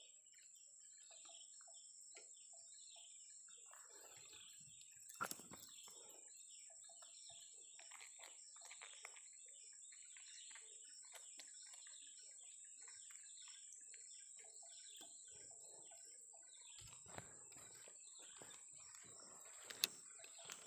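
Faint birds chirping over a steady high-pitched whine, with a sharp click about five seconds in and another near the end.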